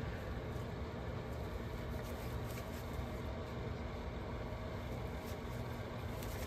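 Steady low background hum of room noise, with faint light ticks now and then.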